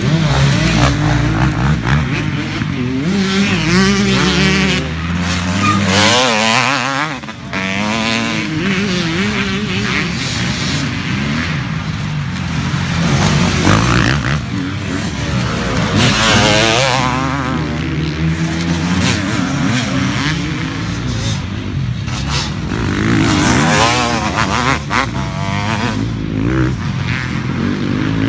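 Motocross dirt bikes racing past one after another, their engines revving up and down through the corner. The pitch rises and falls with throttle and gear changes, and the sound swells as each bike comes by, several times over.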